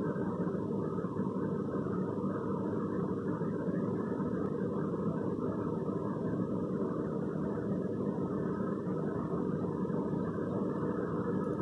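A steady low machine drone, like a motor running, holding an even level throughout with no change.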